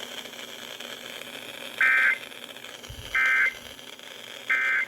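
NOAA Weather Radio sending the EAS end-of-message code: three short, identical buzzing digital data bursts about a second apart, over faint radio hiss. They mark the end of the severe thunderstorm warning broadcast.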